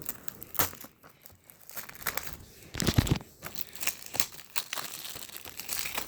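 Plastic wrapping crinkling and rustling as a Blu-ray case is unwrapped and handled, with a dull thump about three seconds in.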